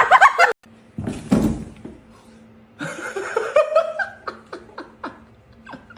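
A person laughing in short bursts, with a rising laugh a few seconds in.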